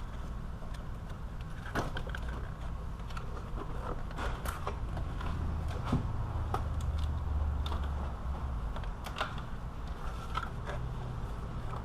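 Irregular clicks, knocks and creaks of hand tools against the plastic and metal of a car's condenser fan assembly as it is unclipped and worked loose, over a steady low hum.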